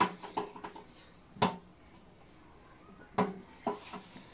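Several sharp knocks and clatters against a stainless steel kitchen sink as the basin and fishing net are handled, some with a brief metallic ring.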